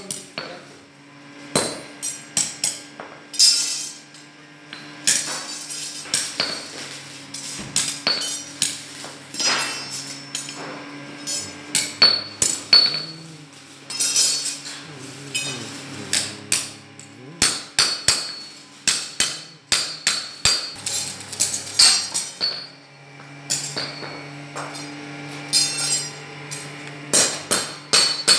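Hand hammer striking steel flat bars on a steel block: sharp, ringing metal clanks in quick runs with short pauses between them.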